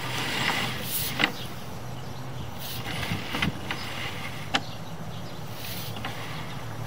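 A steady low mechanical hum, with a few light clicks and ticks scattered through it.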